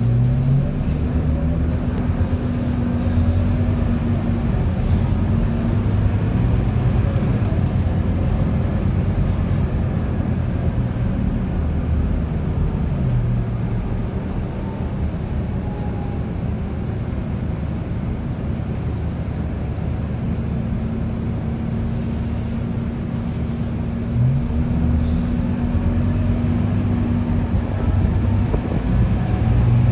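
Interior sound of a Scania K230UB city bus on the move: its nine-litre five-cylinder diesel engine runs steadily under road and tyre noise inside the passenger cabin. The engine note steps in pitch a few times.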